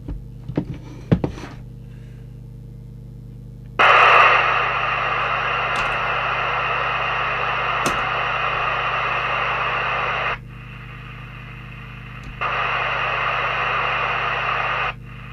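Cobra UK29LTD ST FM CB radio hissing from its loudspeaker with the squelch open and no signal coming through; the set is on frequency but not receiving. The hiss switches on abruptly about four seconds in, cuts off around ten seconds, comes back about two seconds later and cuts off again near the end, over a steady low hum, after a few clicks at the start.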